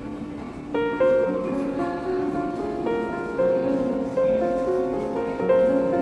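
Background music: a gentle piano melody, its notes beginning just under a second in.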